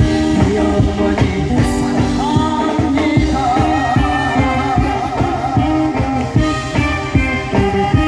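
A male singer singing into a hand-held microphone through a PA, over backing music with a steady beat.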